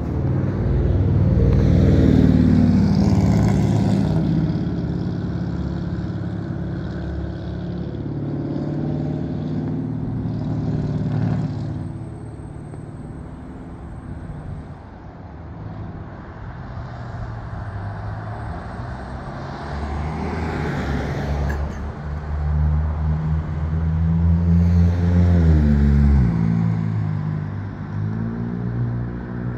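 Car engines running nearby, swelling loudest about two seconds in and again near the end, where the engine pitch slides.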